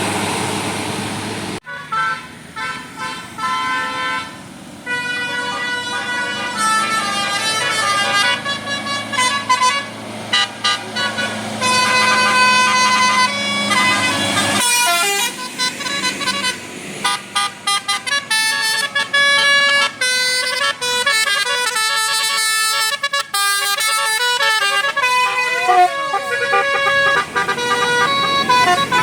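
Indonesian bus 'telolet' multi-tone air horns playing quick melodic runs of stepped notes, some passages blipping rapidly on and off. Several different horns follow one another, with sudden switches about a second and a half in and again about halfway through.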